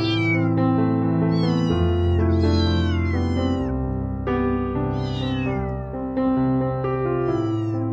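A domestic cat meowing repeatedly: about five short meows, each falling in pitch, over steady background piano music.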